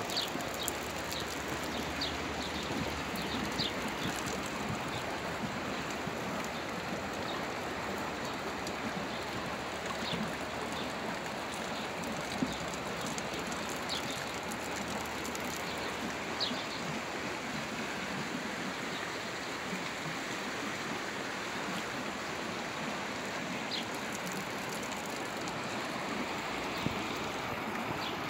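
Shallow stream flowing steadily over stones, a continuous rush of water, with a few short high chirps over it.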